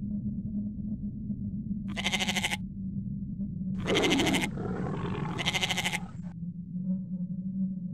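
Sheep bleating three times, each bleat a short wavering call, over a steady low background hum.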